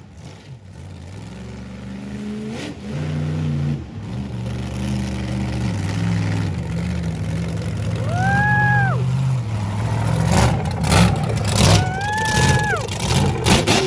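A 1,500-horsepower competition monster truck engine running as the truck drives slowly and comes up close, getting louder, with sharp blips of the throttle in the last few seconds. Two brief high tones rise, hold and fall about eight and twelve seconds in.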